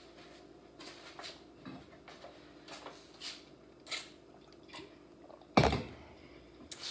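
Small scattered knocks and the rustle of handled paper sheets, then, about five and a half seconds in, one sharp loud thump of a drinks bottle set down on a granite countertop.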